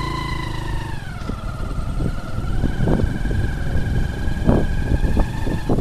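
Hero Honda motorcycle's single-cylinder four-stroke engine running on the move, its note dropping about a second in and then holding steady. Wind rumbles on the bike-mounted microphone, and several knocks come as the bike jolts over bumps in the dirt track.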